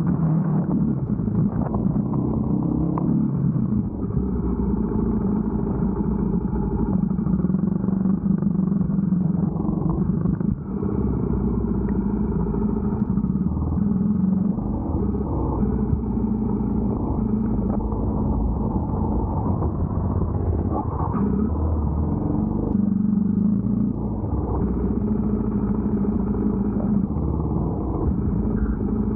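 Motorcycle engine running in first gear under load, its note wavering slightly with the throttle, as the bike climbs a muddy track.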